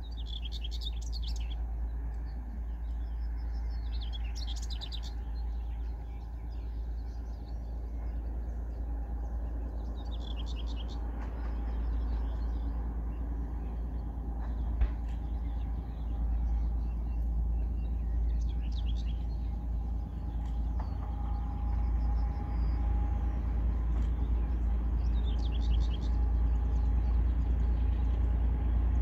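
Birds chirping in short bursts every few seconds over a steady low rumble, as the distant ST44 (Soviet M62-type) locomotive's two-stroke V12 diesel engine grows slowly louder while it approaches.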